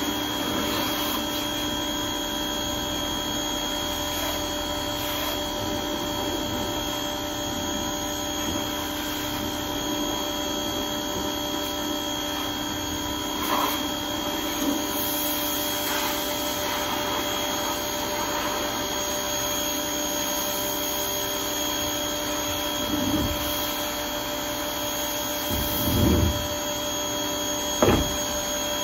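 Pressure washer running steadily with a hum while its wand sprays water onto a plastic wheeled trash bin. A few dull knocks in the last several seconds as the plastic bin is moved and tipped.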